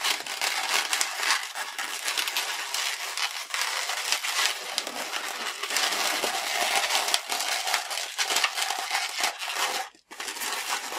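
Inflated latex modelling balloons rubbing against hands and against each other as a green 160 balloon is twisted into bubbles: a dense run of small scratchy rubbing sounds, broken by a brief silence near the end.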